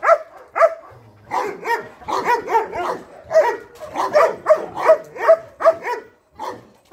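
A German Shepherd-type dog barking in a rapid series, about three barks a second, with a brief pause about a second in.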